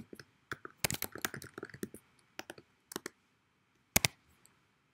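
Typing on a computer keyboard: a string of short, irregular key clicks, with a louder double click about four seconds in.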